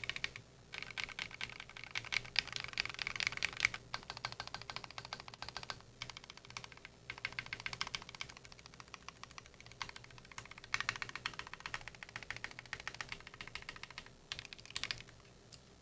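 Fast typing on a custom 60% mechanical keyboard with lubed Akko CS Radiant Red linear switches on an aluminium plate, PBT keycaps and foam-dampened case: a rapid stream of keystrokes with a few brief pauses, stopping shortly before the end.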